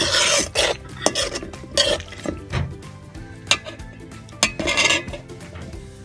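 A metal spoon stirring and scraping through wet, milky pasta in a metal pot. The scrapes are irregular, roughly one a second; the loudest is right at the start and another strong one comes near the end.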